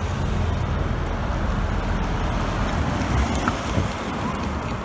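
Street traffic: a car and a coach driving past close by, a steady rumble of engines and tyres on the road.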